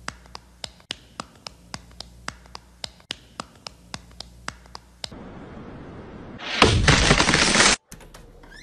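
A dog's wagging tail slapping against another dog's head: a rhythmic patting about three or four times a second for some five seconds. Near the end, a loud rush of noise about a second long cuts off abruptly.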